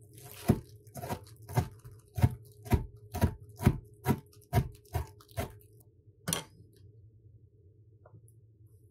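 Chef's knife chopping a red bell pepper on a cutting board: a steady run of knocks, about two a second. The chopping stops after about five and a half seconds, with one last knock a little later.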